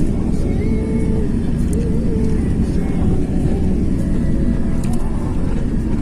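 Steady low rumble of a car driving along, with road and wind noise.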